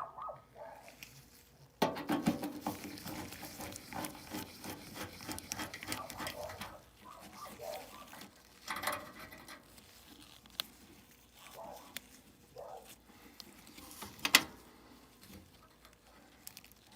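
Irregular clicks, scrapes and rattles of hands and tools working at the air handler's capacitor to remove it, the capacitor leaking oil, with a few sharper knocks among them.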